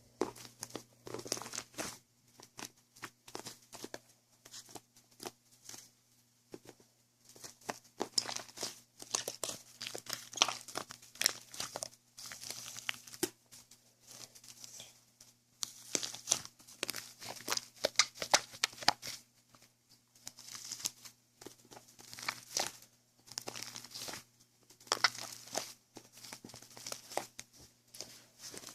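Crinkling and tearing of something being handled: dense, irregular clusters of sharp crackles with short pauses between them.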